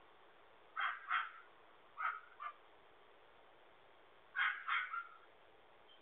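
A dog barking in three quick pairs of sharp barks, heard through a doorbell camera's narrow-band microphone.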